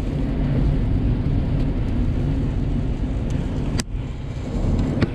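Storm-force wind gusts buffeting a car, heard from inside the cabin as a steady low rumble.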